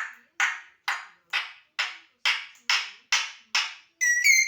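African grey parrot giving a run of nine short, noisy cough-like bursts, about two a second, its mimicked coughing, then a brief whistled squeak near the end.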